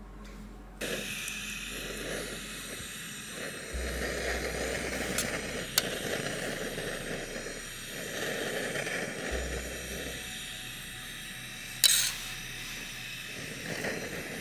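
A metal spoon scooping vegetable curry out of a small camping pot and spreading it on bread, with a few light clinks of the spoon against the pot and one sharper clink about twelve seconds in, over a steady hiss.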